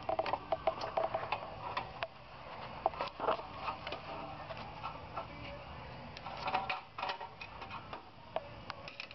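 Light metallic clicks and clinks of a line wrench working the brass fitting of an insulated copper oil tube on a waste oil burner as the tube is loosened and taken off. The clicks come in three clusters, near the start, about three seconds in and about six and a half seconds in, over a low steady hum.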